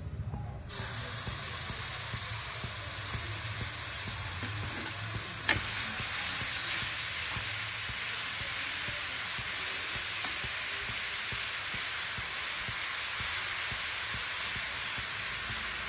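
A spoonful of garlic paste dropped into hot oil with whole spices in a kadhai: the sizzle starts suddenly under a second in, then goes on as a steady frying hiss while a wooden spatula stirs it.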